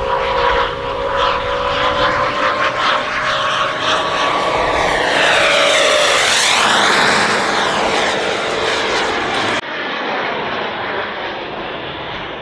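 JetCat P220-RXi model jet turbine on a large RC jet making a fast low pass: a steady turbine whine over a rushing jet noise that grows to its loudest about halfway through. The high whine drops in pitch as the jet goes by, and the sound then fades as the jet climbs away.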